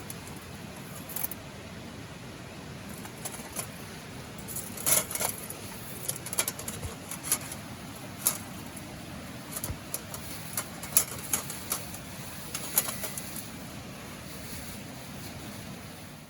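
Wood fire crackling in a Sherry's B-1 stainless steel fire pit: irregular sharp pops and snaps over a steady rushing background, the pops thinning out near the end.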